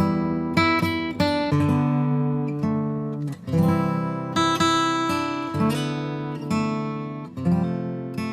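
Background music: strummed acoustic guitar chords, struck again about once or twice a second.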